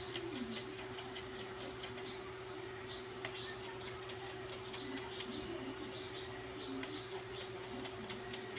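A small brush scrubbing a watch movement part held in tweezers in a metal tin of cleaning liquid: light scratching with many faint clicks. A steady hum runs underneath.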